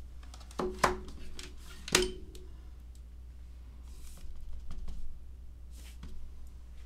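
Sharp clicks and knocks of hard plastic on a table, three in the first two seconds, from a clear acrylic stamp block and a plastic ink pad case being handled and the pad opened; then a few faint rustles.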